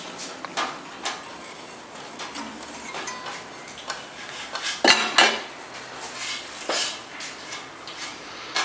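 Irregular light metallic clinks and clatter of metal parts being handled, with a louder clank about five seconds in.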